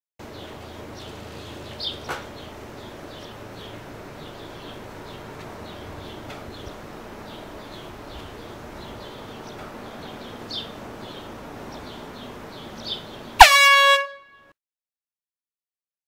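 A single short, loud blast of a handheld air horn about 13 seconds in, sliding quickly up to a steady blaring tone for about half a second, then cut off abruptly. Before it, only a faint steady background with scattered high chirps.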